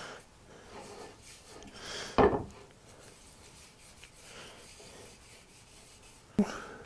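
Parts of an antique Barnes foot-powered mortiser being handled and fitted together: quiet rubbing and scraping, with a sharp knock about two seconds in and another near the end.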